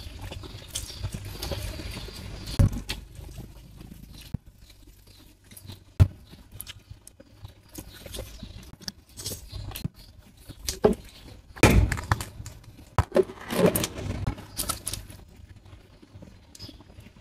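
Eating sounds: utensils clinking and knocking irregularly against a plate or bowl, with chewing, busiest and loudest in the second half.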